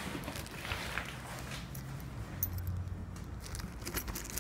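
Handling noise from a motocross helmet: a plastic-wrapped part rustling, with a few small clicks and knocks.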